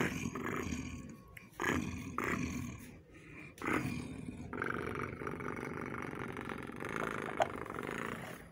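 A person making growling, roaring noises with the voice: several short growls, then one long drawn-out growl from about halfway through. A brief sharp click comes near the end.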